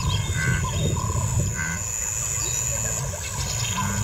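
Bush ambience: a steady low rumble with two short bird calls, about half a second and a second and a half in.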